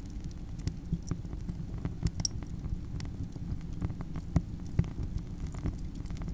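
Wood fire burning: irregular sharp crackles and pops over a steady low rumble of flame.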